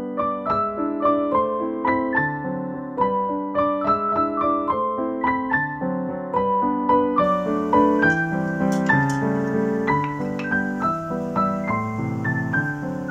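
Background piano music: a steady flow of notes over lower chords.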